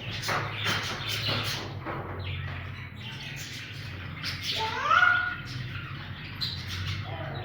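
Budgies chirping and chattering in quick short chirps, with one louder rising call about five seconds in, over a low steady hum.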